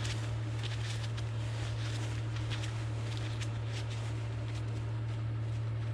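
Electric cable-stripping machine running with a steady low hum, with faint light ticks and crackles as rope-light cord feeds through it.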